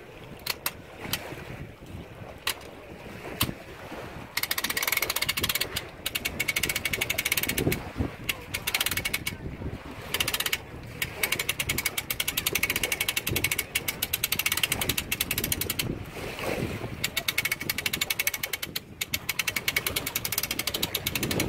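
Boat trailer's hand winch being cranked, its ratchet clicking rapidly in runs of several seconds with short pauses between. A few single clicks come before the cranking starts.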